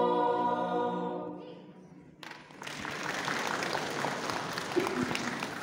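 Women's church choir holding the last chord of a song, which fades away over about two seconds. After a brief hush, applause starts and keeps going.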